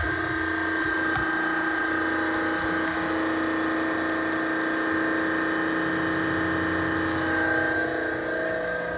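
Copeland refrigeration compressor on a water-cooled system running steadily while the system is being charged: an even mechanical hum with several steady tones.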